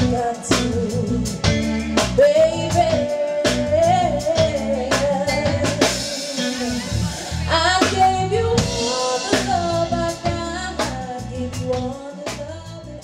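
Live band music: a singer holding long, wavering notes over drum kit and bass guitar, with a cymbal wash about halfway through. The music fades out near the end.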